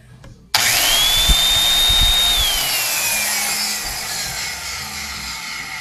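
Valve seat grinder switched on about half a second in. Its motor whine rises fast and holds steady for about two seconds while the abrasive stone grinds the valve seat in the tractor's cylinder head. The motor is then switched off and its whine falls slowly as it coasts down, over a hiss of grinding noise.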